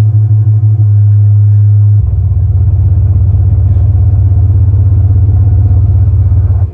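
Old Macintosh crash sound slowed to a very low pitch and played loud through a Logitech Z906 subwoofer: a deep, steady bass tone that turns into a rougher, pulsing low tone about two seconds in, then cuts off suddenly at the end.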